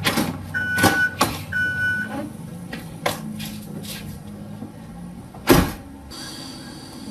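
Car door being handled: two short beeps, then clicks and knocks as the door is opened and someone gets in, and the door slams shut about five and a half seconds in. A low steady hum runs underneath.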